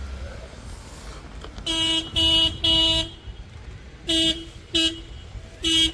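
Car horn honking: three short beeps in quick succession about two seconds in, then three more spaced-out beeps, the last near the end, all at one steady pitch.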